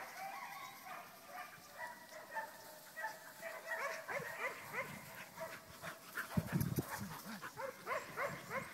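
Border collie puppy yipping and barking in quick short calls, several a second, while herding. A brief low rumble a little past the middle is the loudest moment.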